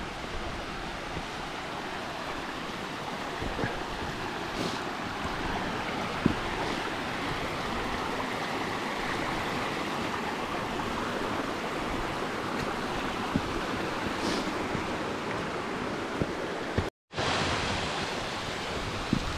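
Mountain stream rushing over rocks and small cascades, a steady wash of water, with a few sharp clicks scattered through it. The sound breaks off for an instant near the end.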